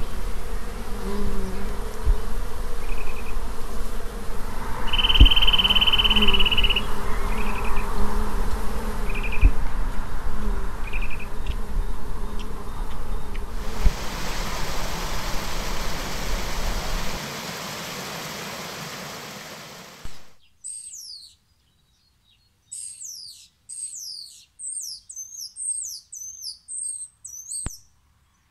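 Nature field recordings in succession. First, insects buzz over a low rumble with occasional knocks and a few short whistled notes, one held for nearly two seconds. Then comes a steady rushing hiss. Then, about twenty seconds in, a small bird sings rapid, high chirps that sweep down in pitch.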